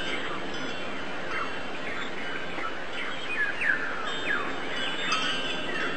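Many small birds chirping in quick, short falling notes over a steady background hiss, with a few faint ringing chime tones.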